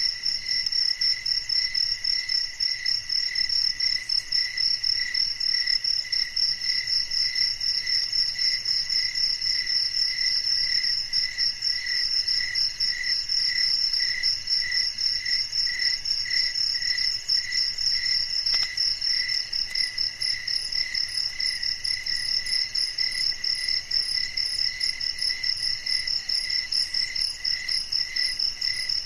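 Insects chirping in a steady, continuous chorus: a high, rapidly pulsing tone over a lower one that pulses about twice a second.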